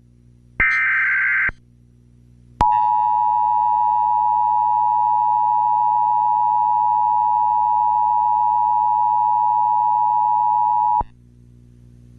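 Emergency Alert System audio: a short buzzy burst of SAME digital header data, then after a brief pause the steady EAS attention tone, which holds for about eight seconds and cuts off abruptly. This signals the start of an emergency alert broadcast.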